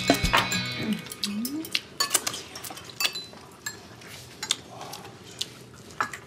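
Chopsticks and spoons clinking against ceramic bowls and plates during a meal: a steady scatter of light, irregular taps.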